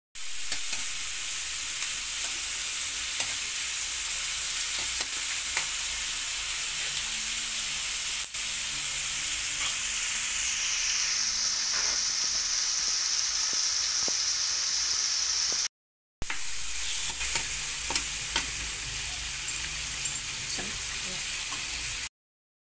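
Chicken gizzards (baticolon) sizzling in hot oil in a pan, stirred with a spatula, with a steady hiss and light scrapes and ticks. The sizzle changes about halfway through and breaks off briefly about two-thirds of the way in.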